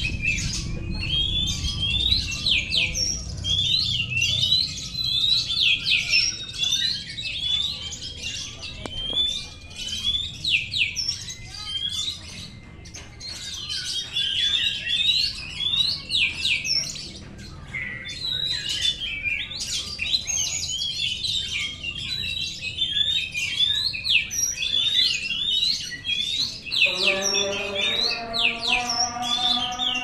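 Oriental magpie-robins singing: a fast, varied run of sharp sweeping whistles and chirps, easing off briefly twice.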